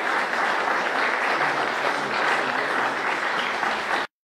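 Audience applauding: steady clapping that cuts off suddenly near the end.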